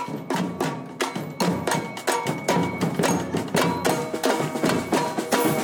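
Street percussion band playing a steady marching beat on snare drums struck with sticks, a Pearl snare drum among them, with hand percussion such as tambourines. A few held tones join in from about four seconds in.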